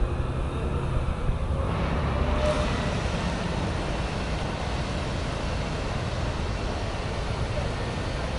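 A vehicle engine runs with a steady low hum. About two seconds in, a steady rushing noise swells up over it and holds.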